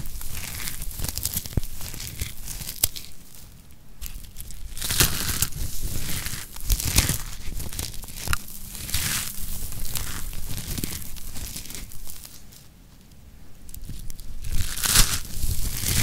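Dry, crispy grated soap curls crunching and crumbling as they are squeezed in the hands, with a crisp crackling rustle in surges every second or two, a quieter lull, then a louder squeeze near the end.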